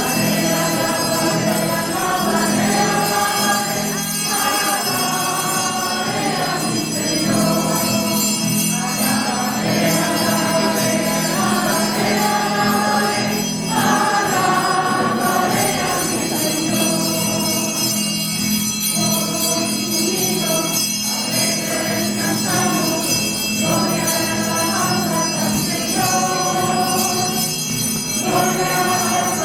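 A choir singing a church hymn in sustained phrases of a few seconds each, over a steady low held tone.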